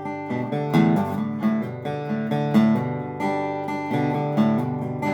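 Gretsch resonator guitar playing an instrumental break between sung verses: a run of picked notes over bass notes, with no singing.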